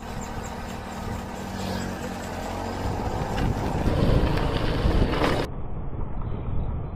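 Steady vehicle noise, like a car running or passing traffic. About five and a half seconds in it cuts to a duller, muffled noise.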